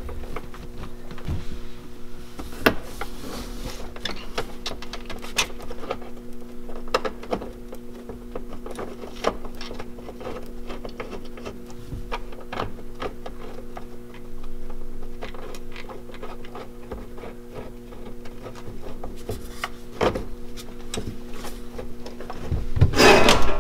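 Hands fitting mounting hardware (bolts, washers and a rubber spacer) onto a Power-Pole pump bracket: scattered small clicks, scrapes and rubbing of metal and plastic, with a louder clatter near the end.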